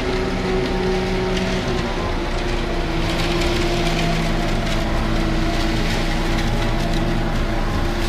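Concrete mixer truck's diesel engine running steadily as the truck pulls slowly past.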